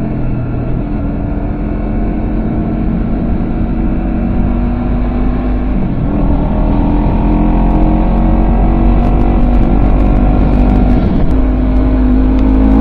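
Honda CBR250RR's parallel-twin engine, fitted with a WR'S SS-OVAL titanium slip-on silencer, accelerating through the gears. The pitch climbs slowly, drops at an upshift about six seconds in and again about eleven seconds in, and climbs again, growing louder.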